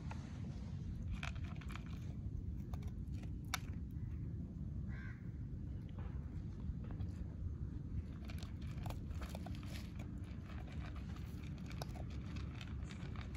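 Dog eating from a plastic bowl: scattered crunching and clicking of chewing and of its mouth working in the bowl, over a steady low rumble.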